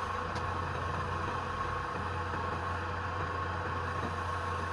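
Wood lathe running, a steady electric motor hum with an even hiss.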